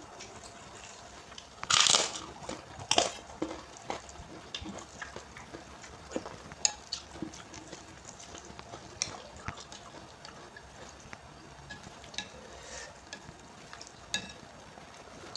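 Close-up eating of Indomie instant noodles with raw bean sprouts: chewing and crunching with small clicks scattered throughout. Two louder, sharp sounds come about two and three seconds in.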